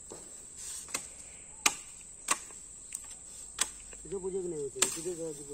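Five sharp knocks or chopping strikes at uneven intervals, over a steady high insect trill. A voice murmurs faintly near the end.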